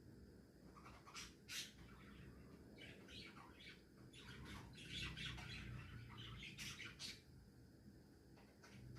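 Budgerigars softly chattering while napping: quiet, scattered short chirps and squawks, busiest in the middle.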